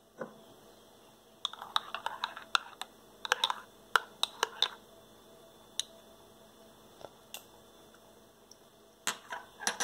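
A metal teaspoon stirring espresso in a ceramic cup: quick runs of clinks and scrapes against the cup's sides about a second and a half in, then a few scattered clicks and a short cluster of clinks near the end.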